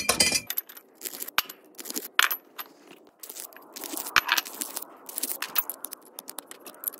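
Galvanized steel conduit nipples being deburred by hand: a reamer and water pump pliers scrape the cut pipe ends. Many short metal clinks and scrapes as the pipe pieces and tools knock together.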